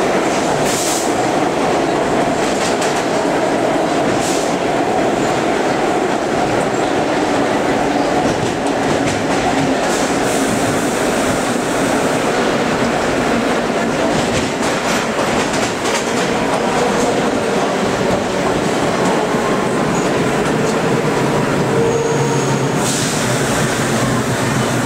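Vintage R9 subway car running along the track, heard from the end doorway between cars: a loud, steady rumble and rattle of the car and its wheels, with occasional sharp clacks and some faint steady whine in the last few seconds.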